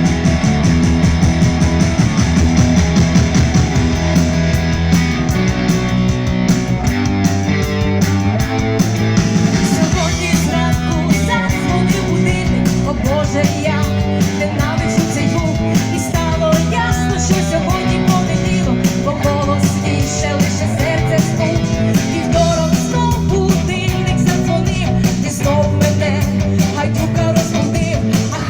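Rock band music: electric guitar, bass and drums, with a singing voice carrying the melody from about eight seconds in.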